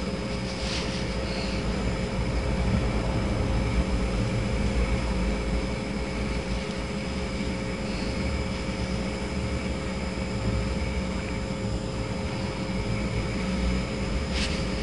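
A steady machine hum with a low rumble and faint, constant whining tones.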